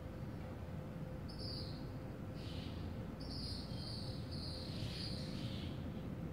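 Outdoor garden ambience: high-pitched chirping calls, a few short ones and one held for over a second in the middle, over a steady low rumble and a faint steady hum.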